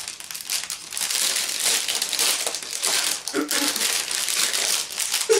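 Clear plastic wrapping crinkling steadily as a packaged makeup bag is handled and worked open.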